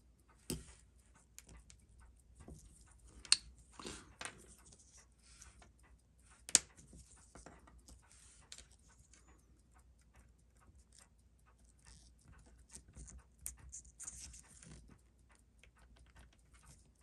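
Faint, scattered small clicks and taps of watchmaker's tools and parts during the teardown of a Seiko 6139 chronograph movement, with two sharper clicks about three and six and a half seconds in.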